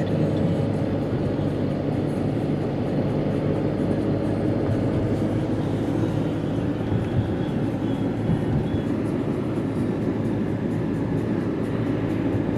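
Steady low rumble of tyres and engine heard from inside a moving car's cabin.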